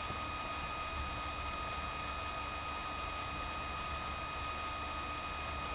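Steady recording background noise: an even hiss with a low hum and a thin, high-pitched electrical whine, unchanging throughout.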